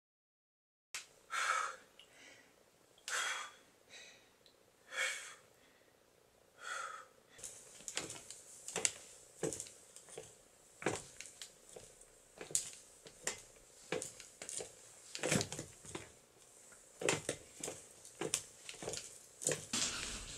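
A person breathing hard and wheezing while exercising. There are long, loud breaths about every two seconds at first, then from about seven seconds in quicker, shorter breaths and noises over a steady hiss.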